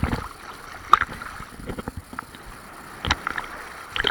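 Big sea waves splashing and surging close to the microphone. There are sharp splashes at the start, about a second in, about three seconds in and again near the end.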